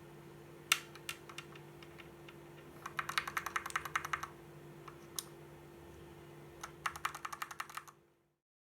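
Typing on a Fantech MAXFIT61 mechanical keyboard fitted with lubed Gateron G Yellow linear switches. A few single keystrokes come first, then a fast burst of typing about three seconds in and another about seven seconds in, over a faint steady hum. The sound cuts off abruptly near the end.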